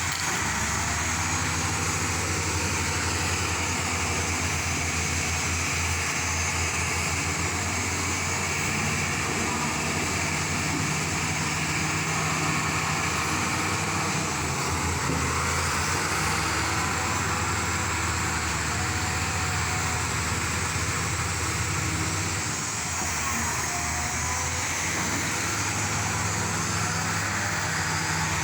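A motor vehicle engine running steadily, with an even rushing noise over it.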